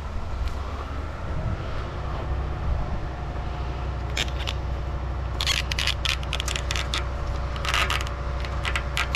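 Footsteps crunching on a gravel and dirt path, irregular and closer together in the second half, over a steady low engine hum.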